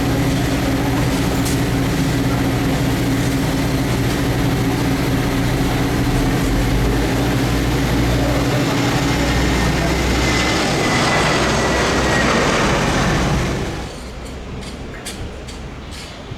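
Airbus A330-200 jet engines running loud and steady, a low drone with a faint high whine over it. Near the end the sound drops off abruptly, and a few faint ticks follow.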